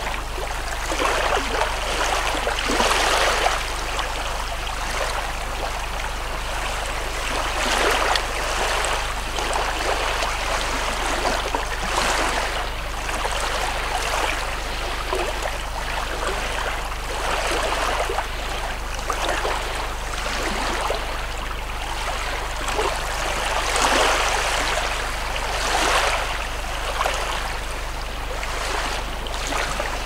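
Small sea waves lapping and washing up onto a stony beach, the wash swelling every few seconds over a steady low rumble.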